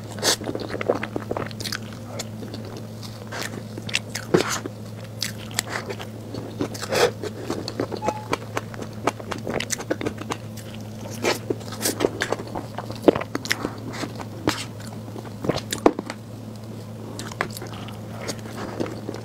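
Close-miked eating of a soft chocolate cream layer cake: irregular wet bites, chewing and mouth clicks. A steady low hum runs underneath.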